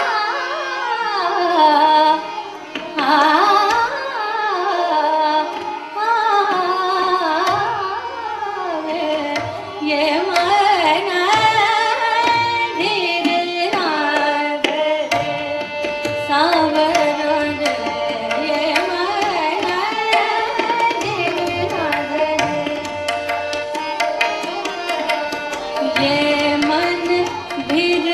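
Female Hindustani classical voice singing a thumri in raga Tilang, with long ornamented glides, over a tanpura drone and harmonium, with tabla keeping the Jat taal cycle; the tabla's low drum comes forward about eight seconds in.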